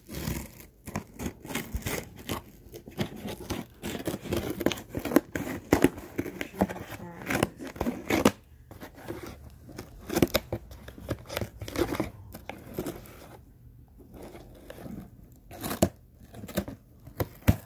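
Scissors cutting open a cardboard shipping box along its taped seam: irregular snips and scrapes, with packing tape tearing and cardboard rustling. There is a short pause about three-quarters of the way through.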